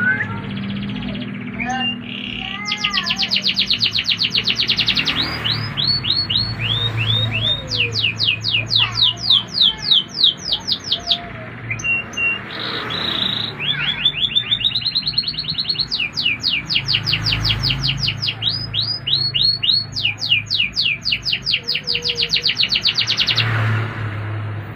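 Domestic canary singing a long song of rapid trills: runs of fast, evenly repeated high notes, each sweeping down, broken by short pauses and changes of note, with a brief lull about halfway through.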